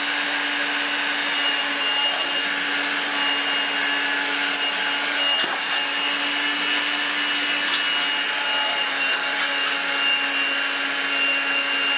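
Vacuum cleaner running steadily: an even motor whine over a constant low hum, with one light knock about halfway through.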